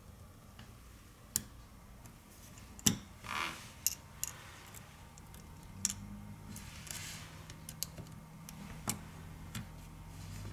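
Scattered small clicks and taps, the loudest about three seconds in, with a couple of brief scraping rustles: a phone and small tools being handled on a repair bench.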